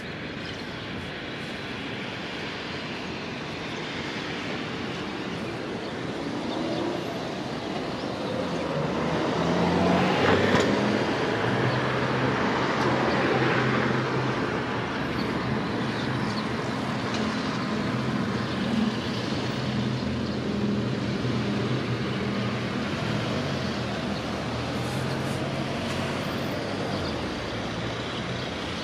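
Road traffic on a nearby road: a steady rush of passing vehicles that swells to its loudest about ten seconds in, with a heavy vehicle's engine running low and steady through most of the rest before fading near the end.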